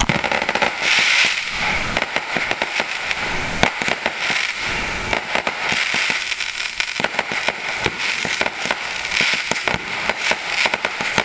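Aerial fireworks firing in a dense, continuous barrage: rapid launch thumps and sharp bangs one after another, over a steady crackle of bursting stars.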